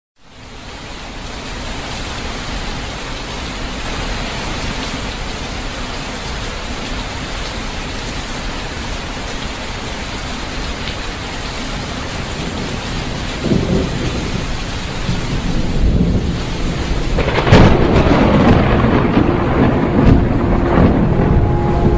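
Steady heavy monsoon rain, fading in at the start. Rolls of thunder rumble from about two-thirds of the way in, with a loud thunderclap a few seconds later, the loudest moment.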